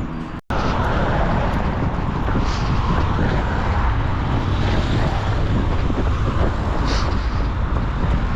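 Loud, steady outdoor noise of wind buffeting the microphone mixed with passing road traffic, after a brief cut-out just under half a second in.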